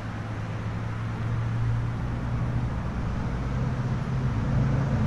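An engine running steadily with a low hum, stepping up slightly in pitch near the end.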